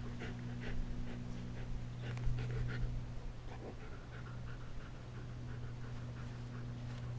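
A Czechoslovakian wolfdog and a German hunting terrier puppy play-fighting: panting and short, irregular mouthing noises, over a steady low hum.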